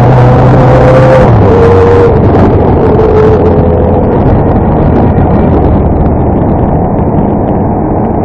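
Motorcycle engine running while riding, heard from on the bike, with wind rushing over the microphone; the engine note steps down a little about a second in.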